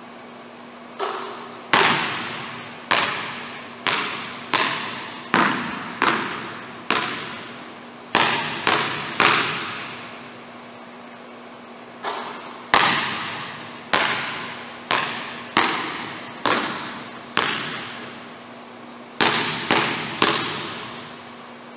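Basketball bouncing on a hardwood gym floor: a string of sharp bounces, each ringing out in the echo of the large empty gym, coming in runs with short pauses between. A faint steady hum runs underneath.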